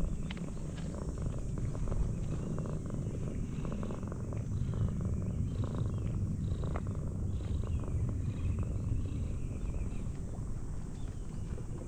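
Orange tabby cat purring steadily as it is stroked, a continuous low rumble close up.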